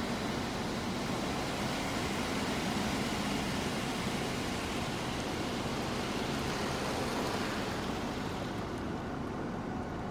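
Automated car wash spraying water over the car, heard from inside the cabin as a steady rushing hiss. The spray eases off about eight seconds in, leaving a lower rumble.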